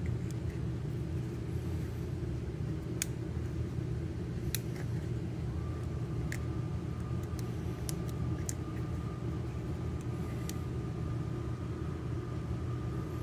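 Steady low rumble of room noise, with a few faint sharp clicks from plastic action-figure parts being handled and fitted together. A faint steady high tone comes in about halfway through.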